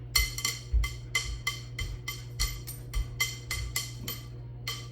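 Background music: a light percussive beat of crisp wood-block-like clicks, about three a second, over a steady low hum.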